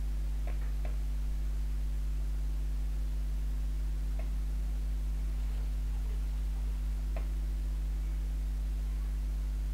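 Steady low electrical mains hum with evenly spaced overtones, unchanging throughout, with a few faint clicks scattered through it.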